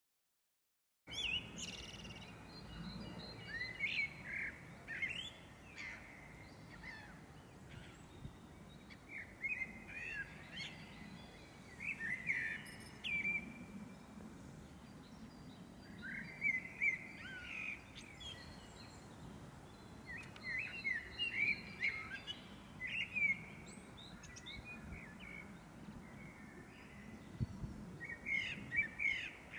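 A songbird singing in short phrases of quick, high notes, each phrase followed by a pause of a second or two. The song starts about a second in.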